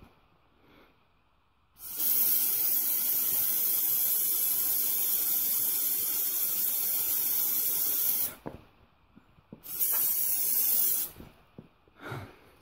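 Aerosol insecticide can spraying in two bursts: a long, steady hiss of about six seconds, then a short burst of about a second and a half.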